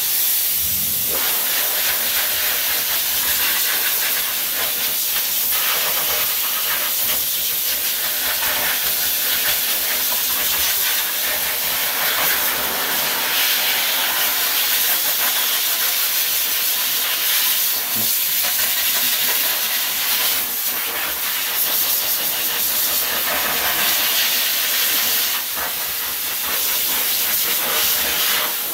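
Forced-air dog dryer switching on and blowing a loud, steady rushing hiss of air through its hose and nozzle onto a wet dog's coat. The level wavers a little as the nozzle is moved.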